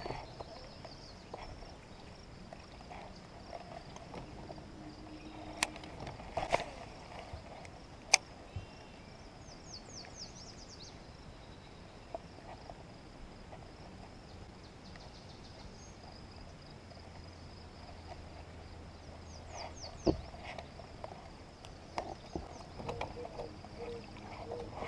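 Quiet outdoor ambience on the water: a steady high-pitched hum and a couple of brief bursts of quick chirping calls. A few sharp knocks stand out, the loudest about eight seconds in and another about twenty seconds in.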